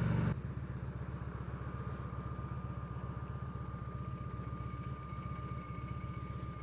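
Victory Vegas motorcycle's V-twin engine running at low revs with a steady, rapid exhaust pulse. Its level drops just after the start.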